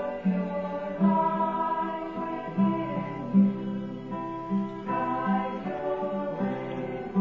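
Background music with a choir singing or chanting over held chords that change every second or two.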